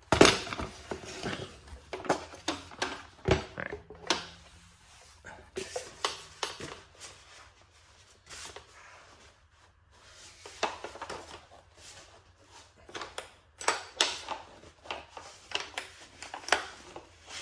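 Irregular hard plastic clicks, knocks and rattles from a Snap-on pressure brake bleeder tank being handled while its locking-tab lid is worked loose, with a loud knock at the very start.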